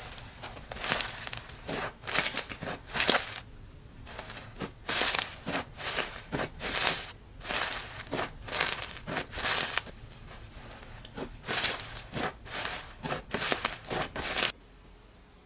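Slime being squeezed and pressed by hand, giving irregular crackling and crunching pops in quick clusters; it cuts off suddenly near the end.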